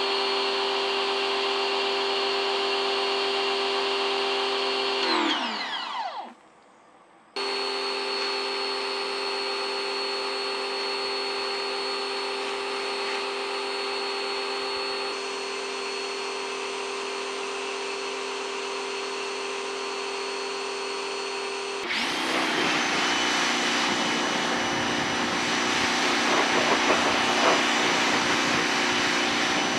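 Briggs & Stratton S1800 electric pressure washer's motor and pump running with a steady whine. About five seconds in it winds down and stops, then starts again abruptly a second later. Around two-thirds of the way through, the loud hiss of the high-pressure water spray joins it.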